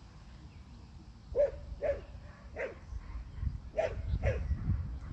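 A dog barking five times, three quick barks then a pause and two more, over a low rumble.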